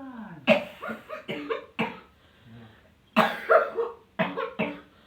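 A woman coughing in two fits of several harsh coughs each, the first about half a second in and the second about three seconds in.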